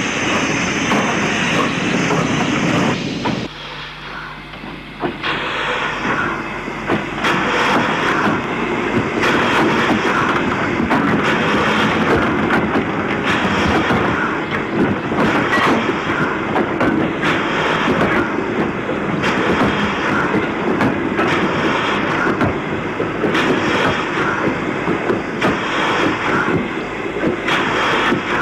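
Steam locomotive working slowly, its noisy running sound punctuated by regular beats about once a second. The sound drops briefly about three seconds in.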